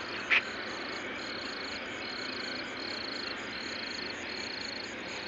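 Night chorus of calling creatures: a high trill pulsing about once a second over a steady hiss. A brief sharp sound about a third of a second in stands out above it.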